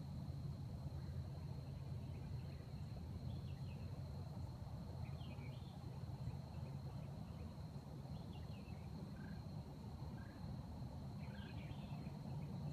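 A steady, high insect trill with clusters of short bird chirps every two to three seconds, over a low rumble.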